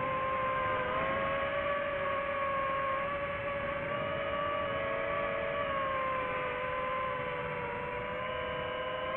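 FPV quadcopter's motors and propellers whining steadily, the pitch drifting slightly up and down as the throttle changes.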